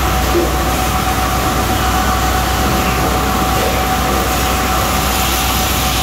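Steady machinery din of an automated sawmill board-handling line, with chain transfer conveyors and roller decks running. A constant whine sits over a low hum.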